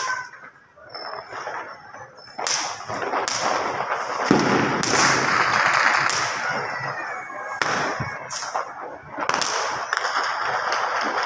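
Fireworks and firecrackers going off: a series of sharp bangs roughly a second apart, with a loud rushing hiss for a few seconds in the middle.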